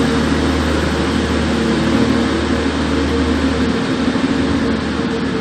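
Class 185 diesel multiple unit's engine running steadily as the train pulls away, a low drone under a broad rush of noise; the deepest part of the drone drops away about two-thirds of the way through.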